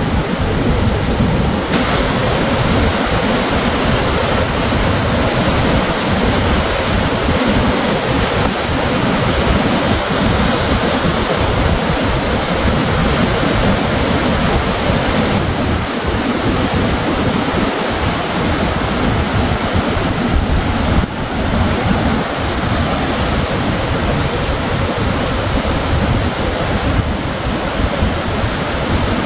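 River waterfall and rapids rushing steadily in full flow, swollen by heavy rains.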